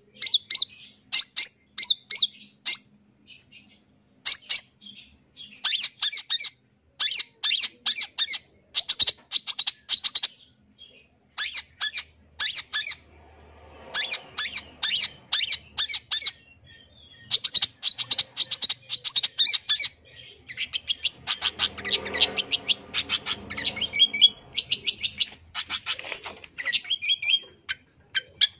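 Long-tailed shrike singing a fast, varied song: runs of rapid high chirps in phrases broken by short pauses, with a lower, rougher passage about three-quarters of the way through. The song is packed with mimicked phrases (a 'full isian' song).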